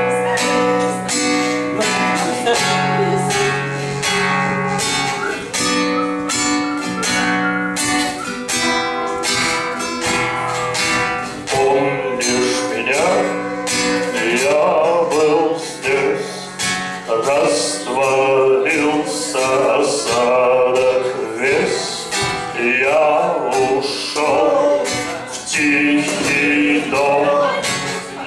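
Acoustic guitar strummed in a steady rhythm, played live. A voice comes in singing over it about twelve seconds in.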